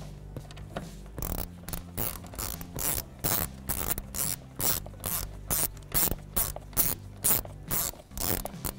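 Hand ratchet and socket turning a bolt, its pawl clicking on each swing of the handle, about two to three strokes a second, starting about a second in.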